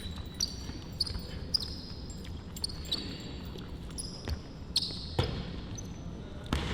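Basketball being dribbled on a court during a one-on-one game, with sneakers squeaking on the floor in short high squeals several times a second or so.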